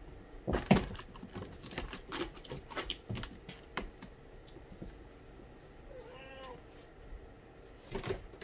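A Balinese kitten gives one short meow that rises and falls, about six seconds in, amid scattered knocks and taps of play on the cat tree, the loudest knock about a second in.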